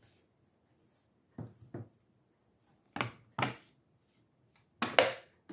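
Short knocks and clunks of kitchen items being handled and set down on a benchtop: two close together about a second and a half in, two more about three seconds in, and the loudest just before the end.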